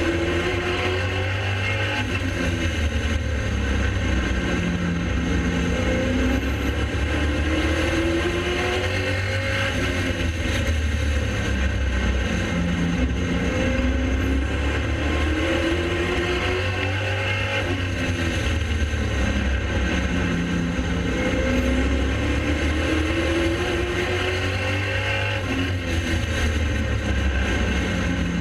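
Pro Late Model race car's V8 engine at racing speed, its pitch repeatedly climbing under throttle and dropping back as it lifts, over and over without a break.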